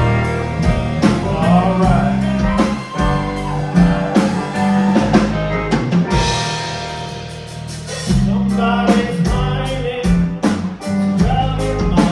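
Rock music with a drum kit, guitar and singing. The drums and bass drop out for about two seconds near the middle, leaving a held chord, then come back in.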